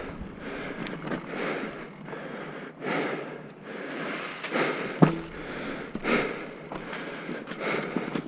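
Mountain bike riding down a rough forest trail: knobby tyres rolling over leaves, dirt and rocks, with the bike rattling over the bumps and one sharp knock about five seconds in.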